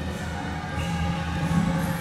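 Temple procession music blaring from a large cart-mounted horn loudspeaker: sustained notes that shift pitch every second or so over a steady low drone.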